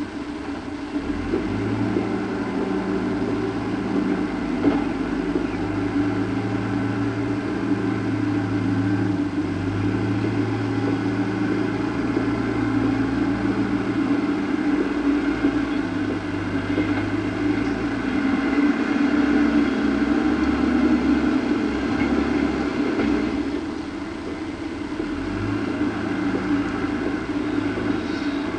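Steady mechanical hum whose low tones switch on and off in steps.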